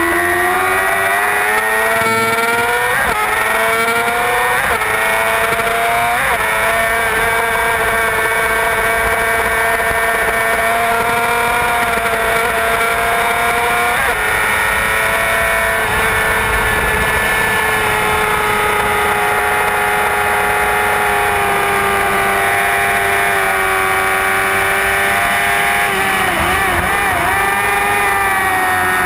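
Onboard sound of a heavyweight superbike's engine under hard acceleration, the pitch climbing and snapping back at four quick upshifts in the first six seconds. It then holds high, near-steady revs for a long stretch before the revs waver near the end.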